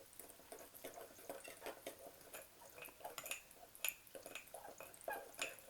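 Fork stirring thick chocolate cake batter in a mug: faint, irregular clinks against the mug with soft wet sounds from the batter, several a second.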